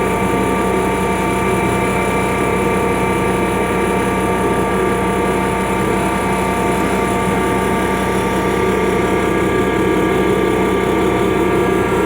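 Freightliner truck's diesel engine running steadily at a constant speed.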